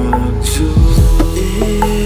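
Background music with a beat and held bass notes that drop in pitch.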